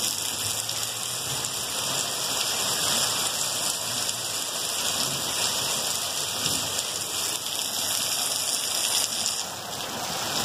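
Heavy rain falling steadily on a street and tiled roofs: a dense, even hiss that eases slightly near the end.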